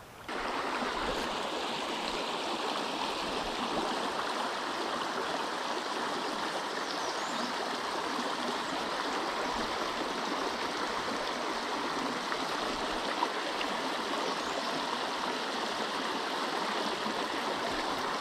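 Creek water rushing steadily over a low ledge into a shallow riffle, a constant splashing hiss. It cuts in abruptly just after the start.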